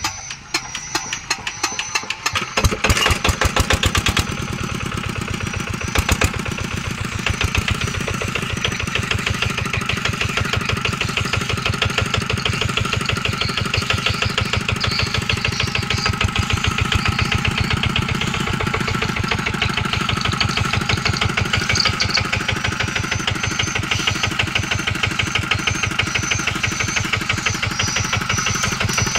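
Yanmar S65 single-cylinder diesel engine catching as it is started, with a few louder knocks about three seconds in. It then settles into a steady, even running beat from its firing strokes.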